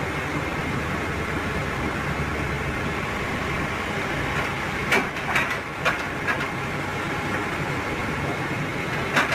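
Heavy machinery running steadily with a low rumble, broken by a few sharp clanks about five to six seconds in and again near the end.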